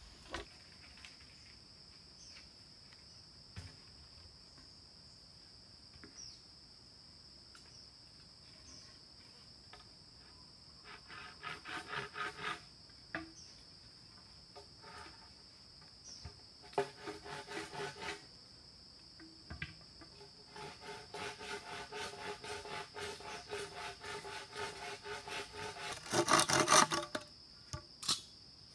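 Insects droning steadily at a high pitch, with bouts of quick, rhythmic hand-saw strokes through bamboo that start about eleven seconds in and come thicker later, loudest near the end.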